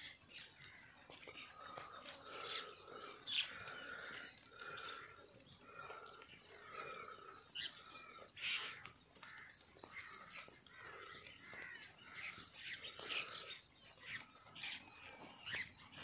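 A flock of small birds chirping and calling, many short overlapping calls, with one lower call repeating about once a second.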